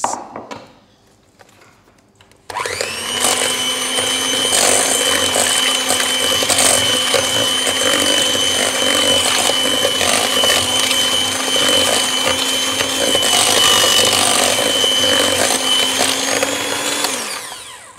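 Electric hand mixer switched on about two and a half seconds in, briefly rising in pitch, then running steadily with a whine as its twin beaters cream butter and caster sugar in a stainless steel bowl; it winds down and stops shortly before the end.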